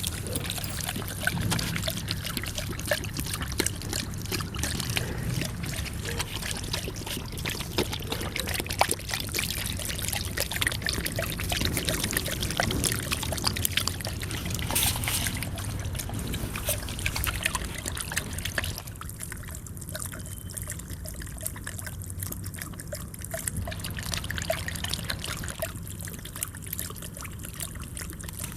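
Water running from a faucet and splattering as a German Shepherd laps at the stream, with many small wet clicks and splashes; the splashing thins out for a few seconds twice in the second half.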